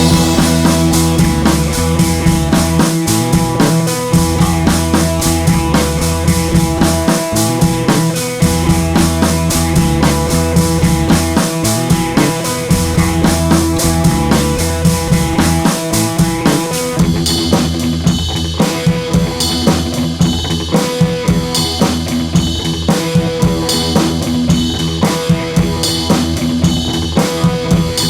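Background rock music with a driving drum kit and bass; after about 17 s it thins to a sparser beat.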